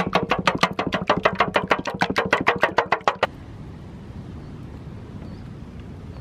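Wooden spoon beating raw eggs in a stainless steel bowl: rapid clicking strokes, about eight a second, that stop abruptly about three seconds in. After that only a steady low background hiss and rumble remains.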